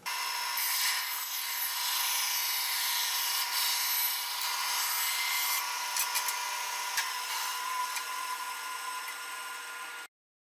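Band saw cutting through a wooden board with a steady, high-pitched sawing noise, sped up to four times normal speed. It cuts off suddenly near the end.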